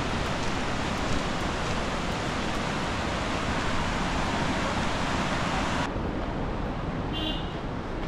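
White-water rapids on the Ganges rushing, a steady, loud hiss of water. Near six seconds it cuts to a duller, quieter rush, with a brief high chirp a little after.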